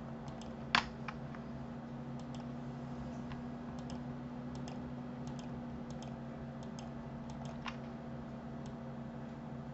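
Computer mouse and keyboard clicks: a sharper click a little under a second in, then a run of light press-and-release clicks, roughly one every 0.7 s, as faces are shift-clicked one after another. A steady low hum runs under them.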